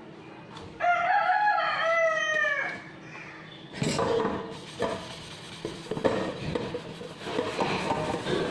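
A loud pitched animal call in two parts, lasting about two seconds. From about four seconds in, a sponge scrubs the inside of a stainless steel pan in repeated rough strokes.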